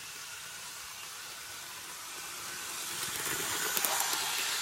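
Hornby OO gauge model steam locomotive running at full power on its track, its motor and wheels making a whirring hiss with some clicks. It grows louder from about two seconds in as the train comes close, and is loudest near the end.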